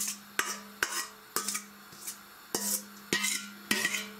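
A metal bowl knocking and scraping against a steel pot as chopped sorrel is tipped and pushed into it. The sharp clinks come at an irregular pace, each with a short metallic ring, over a steady low hum.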